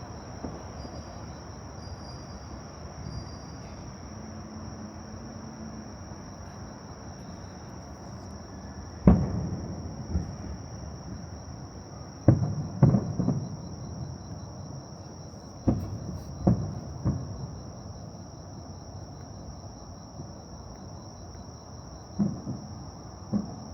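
Fireworks shells bursting in the sky: a single bang about nine seconds in, a quick run of three a few seconds later, three more soon after, and two near the end, each bang trailing off in a rumbling echo.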